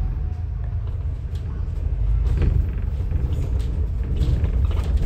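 Moving city bus heard from inside the cabin: a steady low rumble of engine and road noise, with a few light rattles.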